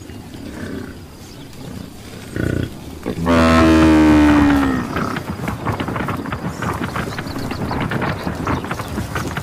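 Buffalo giving a long, loud, low bellow about three seconds in, dropping slightly in pitch, after a shorter, quieter grunt. A run of rapid clicking and knocking follows.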